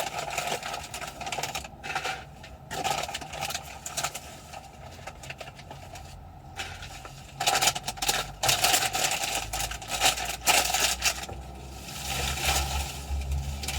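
Plastic food containers being handled: irregular clicks, scrapes and rattles of lids and containers, with a low hum coming in after about nine seconds.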